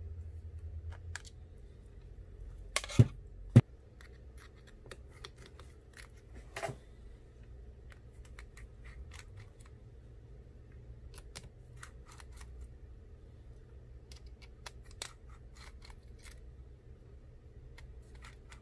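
Small clicks and taps of metal tools on a phone's parts: a precision screwdriver working out the tiny screws on an iPhone 8 display assembly. There are two sharp, louder clicks about three seconds in, over a steady low hum.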